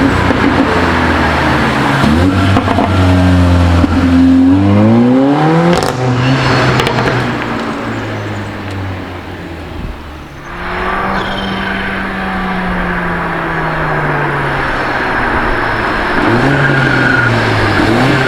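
Mercedes-AMG CLA 45's turbocharged 2.0-litre four-cylinder accelerating hard, revs climbing in steps through quick upshifts over the first few seconds. The engine note then drops and fades around the middle, falls slowly, and climbs again near the end.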